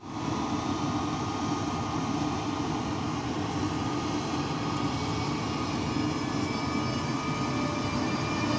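Siemens Taurus EU44 electric locomotive moving slowly past a platform, its traction equipment giving a steady whine of several held tones over a continuous running hum.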